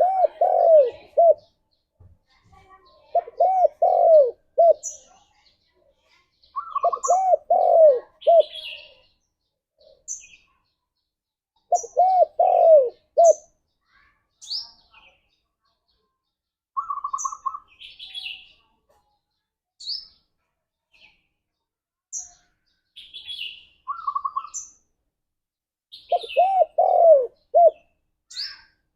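Spotted dove cooing: five phrases of several quick, arched coos, separated by pauses of a few seconds, with the longest gap in the middle. Short high chirps from small birds come in between.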